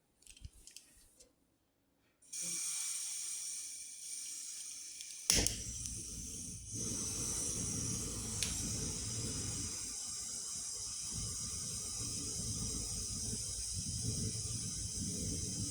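Gas hissing steadily, then a sharp lighter click a little past five seconds in. After the click a low rumble of burning gas joins the hiss and carries on.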